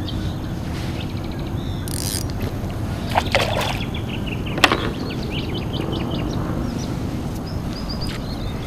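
A hooked bass being brought in beside a kayak: a few sudden splashes and knocks, the sharpest a little over halfway through, over a steady low rushing, with short high bird calls in the second half.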